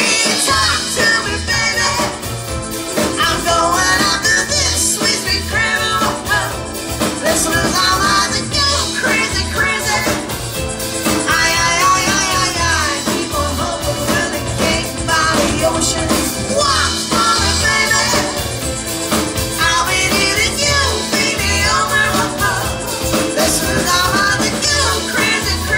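Live band playing a rock song on acoustic guitar and drum kit, with a steady drum beat; the full band comes in together right at the start.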